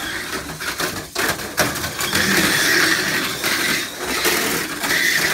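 Tamiya Mini 4WD cars running on a plastic track: small electric motors and gears whirring steadily, with sharp clacks about a second and a second and a half in as they hit the track.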